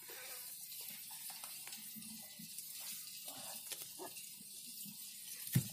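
Wet mud being squeezed and picked apart by hand on a wire-mesh sieve: soft, scattered squelching and crackling. One short sharp thump near the end.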